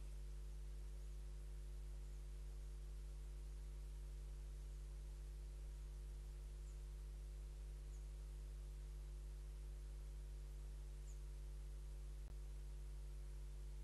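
Steady low electrical hum with a faint hiss, broken only by a few brief, faint high chirps and a single click about twelve seconds in.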